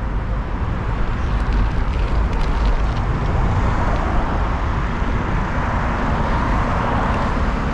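Road traffic on a busy street heard from a bicycle riding through it: a steady rush of passing cars, louder for a few seconds past the middle.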